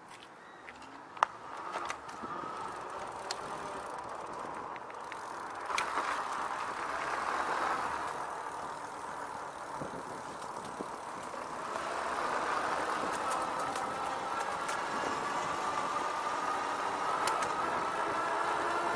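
Rad Power Bikes RadRover's electric rear hub motor whining as the e-bike pulls away and picks up speed, its pitch rising slowly over the last several seconds, over tyre and wind noise. There is a sharp click about a second in.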